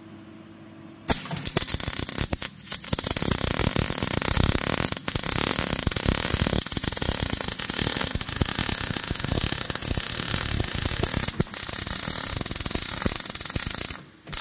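MIG welding arc laying a bead along a sheet-metal joint: a steady crackling sizzle starts about a second in, breaks off briefly near three seconds, and stops just before the end.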